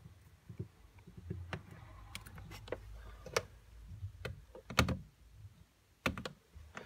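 Multimeter test probes and their leads knocking and scraping against a plastic wiring-centre terminal block and cables: irregular small clicks and taps, the loudest a few around five and six seconds in.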